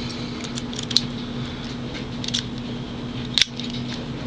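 A few light metallic clicks and taps from a handled Master Lock Pro Series 6840 padlock, the sharpest about a second in and about three and a half seconds in, over a steady low hum.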